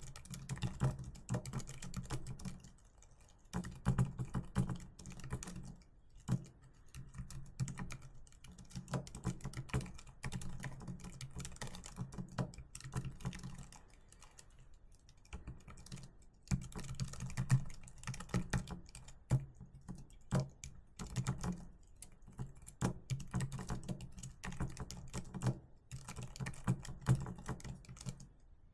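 Continuous fast typing on a computer keyboard, a dense run of keystroke clicks with short pauses about three seconds in, around sixteen seconds and near the end.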